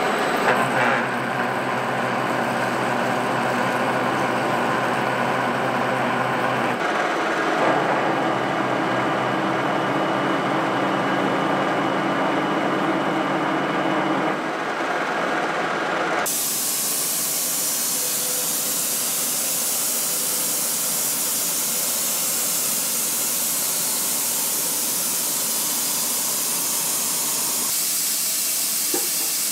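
Metal lathe running while a large twist drill bores into a spinning steel workpiece: a steady gear hum with the hiss of the cut. The sound shifts abruptly a few times, and a broad hiss takes over from about sixteen seconds in.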